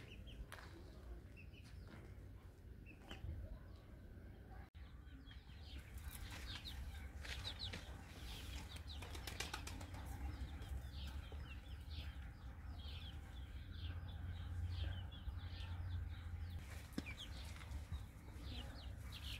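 Many small birds chirping busily in short, quick calls, with a steady low rumble underneath. The chirping is sparse at first and grows thick after a momentary dropout about five seconds in.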